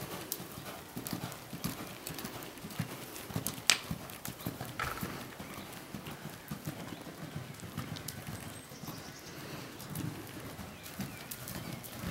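A horse cantering on a sand arena surface, its hoofbeats a steady run of soft knocks. One sharper knock comes about four seconds in.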